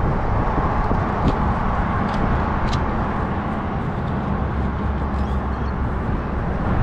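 Steady background rumble of road traffic, with a few faint clicks and scrapes about a second in and near three seconds as a digging knife cuts into grass turf.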